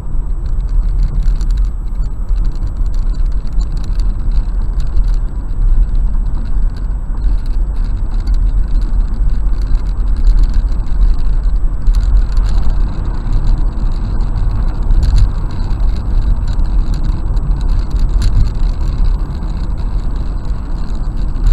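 Steady low road and engine rumble of a car driving, picked up by its dashcam, with irregular light ticks of rain hitting the windshield.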